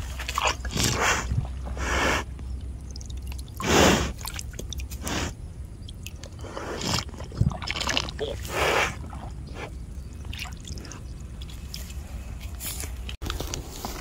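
A cow drinking water from a muddy puddle, sucking and slurping in irregular wet gulps, the loudest a little under four seconds in.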